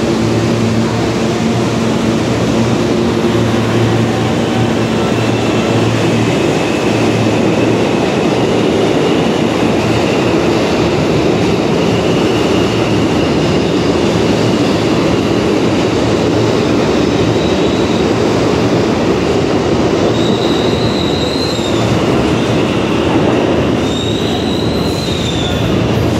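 R160A subway train with Alstom propulsion pulling out of the station and running past: a steady low hum at first, then a loud continuous rumble of steel wheels on rail. High-pitched wheel squeal comes and goes in the last third as the rear cars go by.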